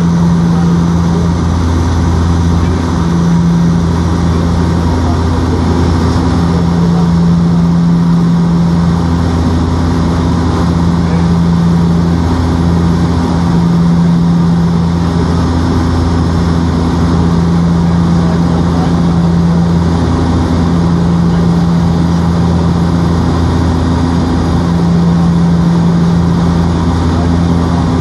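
Airplane engines heard inside the passenger cabin: a loud, steady drone with low hums that swell and fade in a slow beat every second or two.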